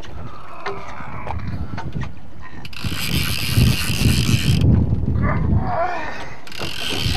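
Fishing reel's drag buzzing as a hooked halibut strips line, diving back toward the bottom: one long run from about three seconds in, and another starting near the end.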